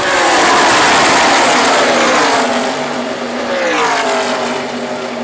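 A pack of NASCAR race trucks passing at speed, their V8 engines loud, with the pitch falling as they go by. A second group follows with another falling pitch about four seconds in.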